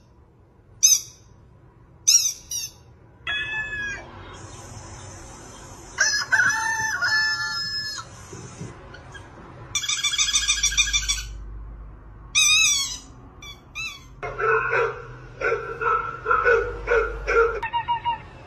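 A string of different bird calls played one after another with short gaps: brief high chirps and whistles, a held high whistle, then lower, rapidly repeated calls near the end.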